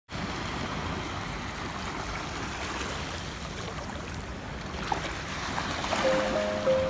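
Calm ocean waves washing on a beach, a steady hiss of surf that swells and eases. About six seconds in, soft music with held notes begins over it.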